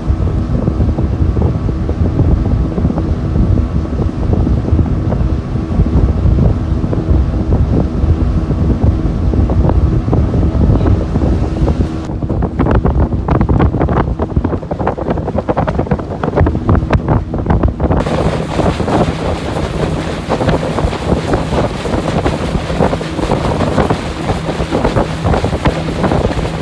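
Twin Yamaha outboard motors running at cruising speed on a fiberglass speedboat, a steady engine drone under rushing wind and water noise with wind buffeting the microphone. The sound changes abruptly about halfway through, and the wind and water noise grows louder for the last third.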